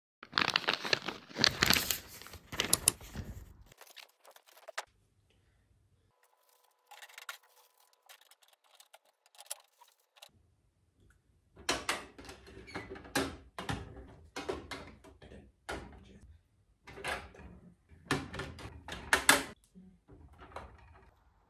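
Intermittent clatter, knocks and rustling of objects being handled in a small room, in short irregular bursts: a cluster over the first few seconds, a near-silent gap of several seconds, then a longer run of bursts.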